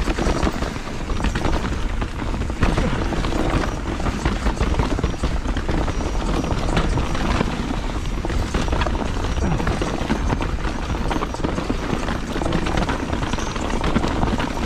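Mountain bike riding over a rough, rocky trail: a steady rush of tyre and wind noise with a dense clatter of small knocks and rattles from the wheels, chain and frame over the rocks.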